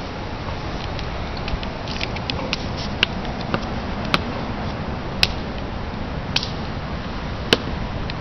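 Hard-soled dress shoes striking stone in a slow ceremonial march, sharp heel clicks about one a second, over a steady low rumble.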